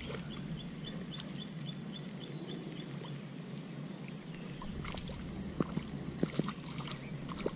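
A small bluegill being reeled in on an ultralight spinning outfit: a quick run of light ticks, about four a second, early on, then a handful of sharp clicks and small splashes near the end as the fish reaches the surface. A steady high-pitched insect drone runs underneath.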